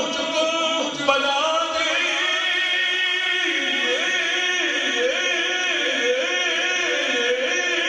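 A man singing a devotional kalam, drawing out long sung notes that waver up and down in ornamented runs from about halfway through.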